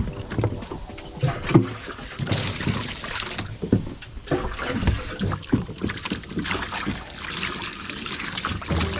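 Water splashing around a small boat, with irregular knocks and bumps on the hull.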